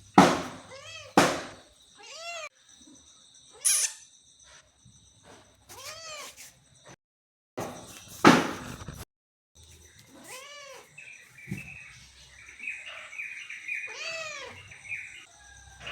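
Domestic cat meowing repeatedly, about five separate meows spread out over the stretch, with a few loud, sharp sounds in between.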